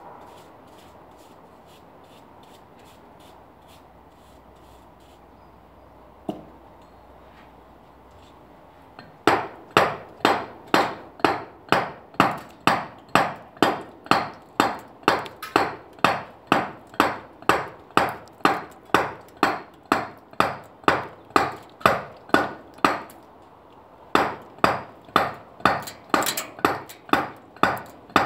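A dummy mallet striking a chisel into a limestone block in a steady rhythm of about two blows a second. It starts about a third of the way in, breaks off briefly near the end, then carries on. Before the blows start there is only one light knock.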